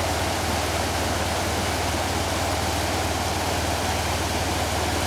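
A river rushing steadily, with a motorcycle engine idling under it.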